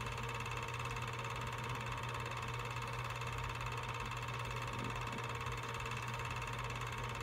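Steady low hum with a constant hiss, and no other sounds.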